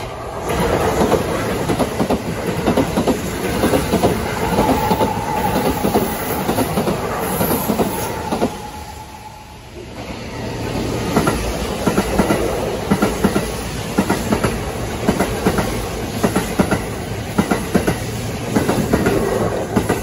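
Kintetsu Osaka Line trains passing over a level crossing, their wheels clattering over rail joints in quick rhythm. The noise eases about nine seconds in, then builds again as a second train passes.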